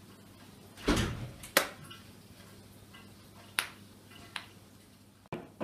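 Handling sounds while a cake is being decorated: a dull thud about a second in, then a few short sharp clicks and taps spread through the rest.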